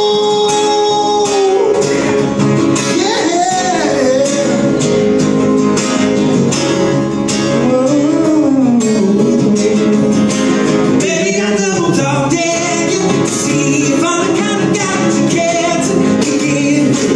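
Live acoustic duo: two acoustic guitars strummed and picked together, with a man singing long, wavering notes that bend up and down in pitch.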